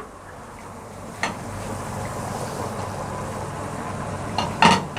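Toasted oats being poured into a pot of simmering soup: a steady hiss that swells after a soft click about a second in, with a sharp knock near the end.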